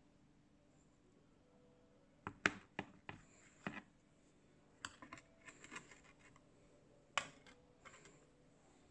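A knife and cake server clicking and tapping against a ridged glass serving platter while a chocolate cake is cut into slices: a scatter of short, sharp clicks starting about two seconds in, after near silence.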